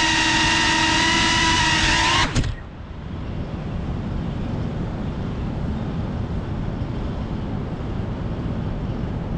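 GEPRC CineLog 35 FPV drone's brushless motors and propellers whining at a steady low speed while it sits on the ground. They cut off abruptly a couple of seconds in as the drone is disarmed, leaving only a low steady rumble of background noise.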